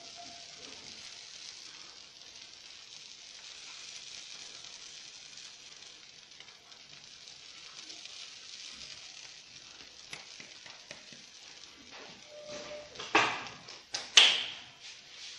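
Pizza base cooking in a pan over a low gas flame, sizzling with a steady soft hiss. A few sharp, loud knocks near the end.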